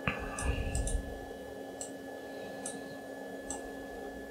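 A series of light, sharp clicks, roughly one a second, from computer controls being pressed while stepping through items in a menu. A brief low rumble comes in the first second.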